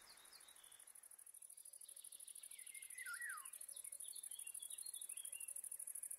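An insect stridulating in a fast, even pulse, very high-pitched, that fades in and grows louder. Over it a bird sings a string of short chirping notes, with a falling whistle about three seconds in.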